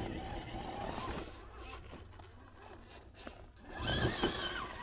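Electric drive motor and gears of an Element RC Enduro Trailrunner 1/10-scale crawler whining as it climbs a steep rock face. The whine eases off in the middle, then comes back louder and higher about four seconds in as the motor takes load.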